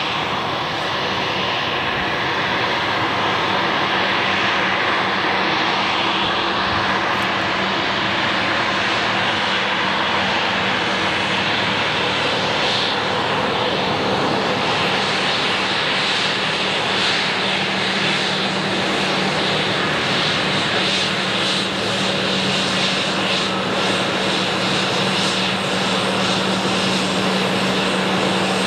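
Embraer 195 jet airliner taxiing, its two General Electric CF34-10E turbofans running steadily at low power: a constant jet rush with a steady low hum.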